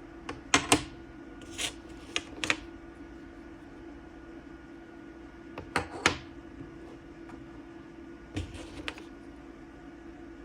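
Toy train puzzle pieces being handled and fitted together: scattered sharp clicks and knocks in small clusters, over a steady low hum.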